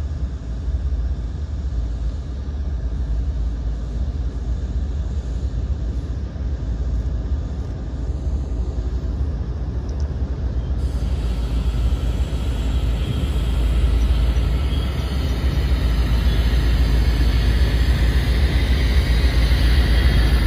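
CSX freight train's GE diesel locomotives approaching, their engines a steady low rumble that grows louder over the last several seconds as the lead unit draws near.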